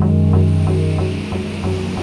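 Self-hypnosis drone music from a 1989 cassette: a steady low droning chord with an even, rapid pulse of roughly three or four beats a second, and a soft hiss that swells about halfway through.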